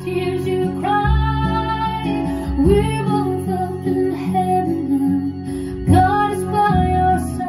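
Music played through JBL 4344 studio-monitor loudspeakers driven by a Sansui AU-D907F amplifier: a folk-style song with acoustic guitar and a singing voice, with sung phrases starting about a second in and again near six seconds.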